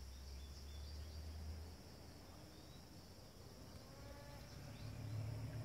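Steady high drone of insects, with a low rumble in the first two seconds. Near the end, a faint, thin whining call from a North American beaver calling for its missing companion.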